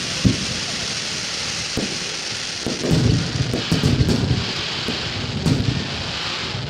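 Star mine fireworks barrage: repeated deep booms of shells bursting, rumbling like thunder, over a continuous crackling hiss from the bursting stars.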